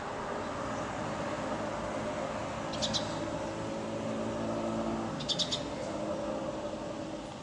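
Street ambience: a steady hum of city traffic, with a small bird giving short quick runs of three or four high chirps about every two and a half seconds. A vehicle engine's low hum comes up in the middle and drops away near the end.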